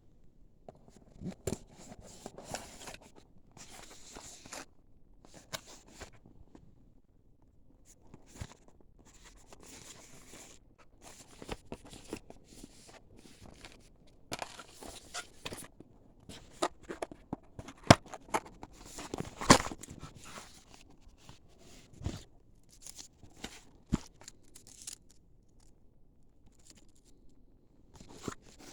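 LiPo battery packaging being handled and opened by hand: irregular crinkling and tearing of plastic and cardboard, with scattered clicks and knocks. A couple of sharper knocks stand out a little past the middle.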